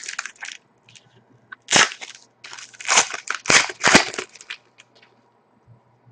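Trading-card pack wrapper crinkling as it is handled, with a few loud crackling crunches about two seconds in and again between three and four seconds in.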